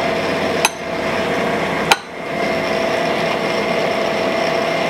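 Cam grinder running with a steady hum, broken by two sharp metal knocks about a second apart as the dividing head is worked by hand.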